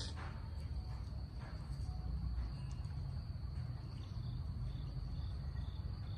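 Steady high-pitched chirring of crickets in the background, over a low rumble, with a few faint clicks.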